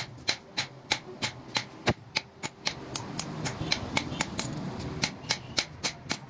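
Hand hammer striking a steel sickle blade on an anvil block with a steady run of sharp metallic blows, about three a second, as the blade is shaped.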